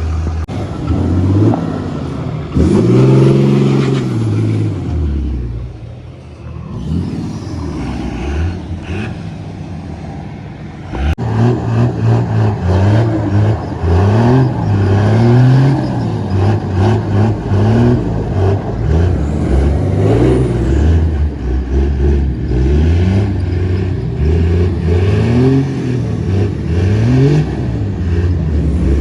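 Truck engine revving up and down: one slow rev in the first few seconds, then, after a sharp knock about eleven seconds in, quick repeated rev bursts.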